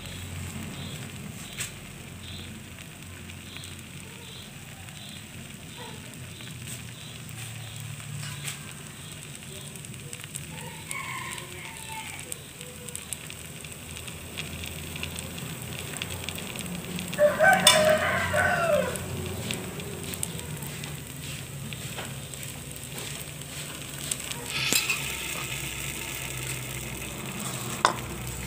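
Thin dadar gulung crepe batter sizzling gently in a hot frying pan. A rooster crows loudly once, about two-thirds of the way through, and there is a brief louder noise near the end.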